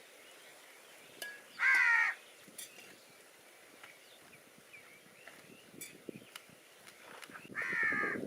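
A crow cawing twice, two harsh half-second caws about six seconds apart.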